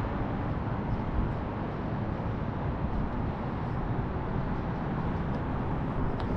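Steady city traffic noise: an even, unbroken rumble with no distinct events.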